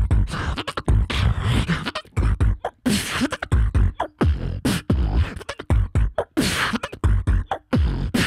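Human beatboxing into a handheld microphone: a fast, steady rhythm of deep kick-drum bass hits traded with sharp snare-like hits, as in a solo battle round.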